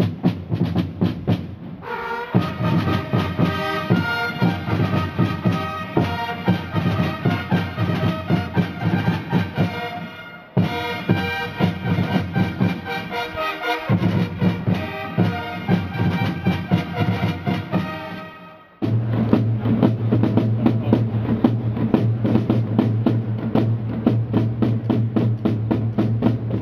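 A fanfare corps playing: drumbeats alone for the first two seconds, then fanfare trumpets join over the drumming. The music cuts off abruptly and resumes twice.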